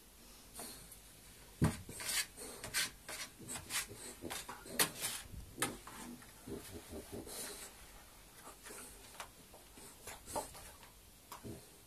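Two dogs play-wrestling on the floor: irregular scuffling, claws scratching and paws knocking, with a sharp thump about a second and a half in and the busiest stretch in the first half.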